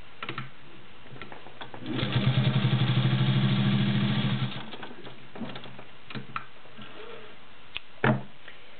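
Singer 201-2 sewing machine with its direct-drive potted motor stitching through three layers of garment leather. About two seconds in it speeds up into a rapid, even run of needle strokes over a steady motor hum, then slows and stops after a couple of seconds. A few short clicks follow.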